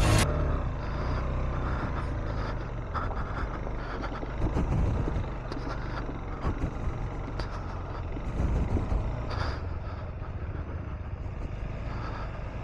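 A vehicle's engine running steadily while driving off-road, with scattered knocks and clatter over the rough ground.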